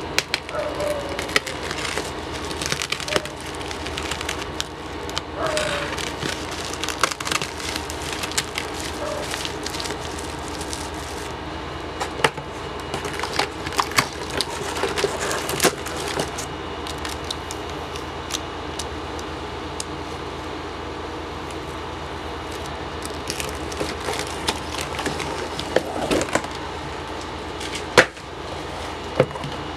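Crinkling and rustling of a plastic bubble-wrap mailer and cardboard packaging being opened by hand, with many scattered sharp crackles and taps and one louder snap near the end, over a steady low background hum.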